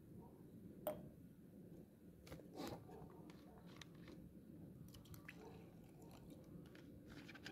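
Near silence with faint handling sounds: a light click about a second in, then a few soft clicks and clinks as a small glass jar and a plastic water bottle are handled.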